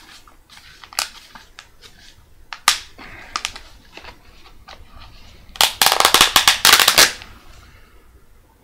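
Plastic packaging being handled and opened: a few sharp clicks, then about a second and a half of rapid crackling near the end.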